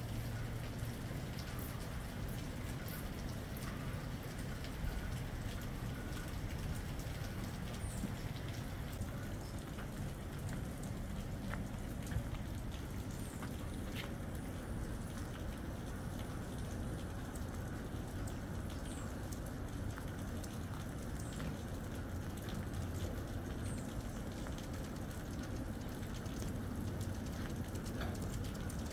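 Steady rain falling, with scattered individual drops ticking on nearby surfaces.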